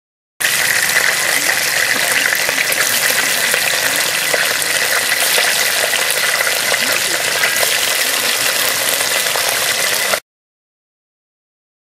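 Small whole fish deep-frying in hot oil in a pot, a dense, even sizzle full of fine crackles. It cuts in abruptly just after the start and stops abruptly near the end.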